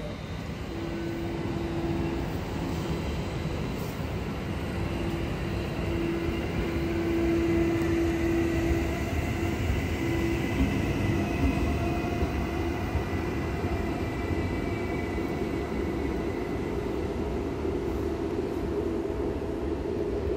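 VR double-deck intercity train moving past the platform: a continuous rumble from the coaches on the track, with a steady hum for the first half and a faint high whine that falls slightly in pitch midway.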